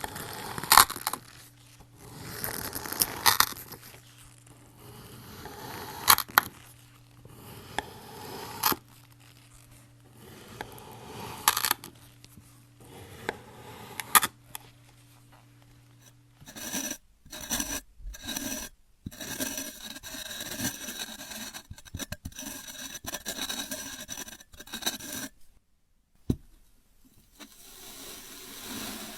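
Sand being scraped and cut in slow, repeated strokes, one every two to three seconds, several ending in a sharp crack. About halfway through the sound changes to a denser run of crackling, crunching scrapes.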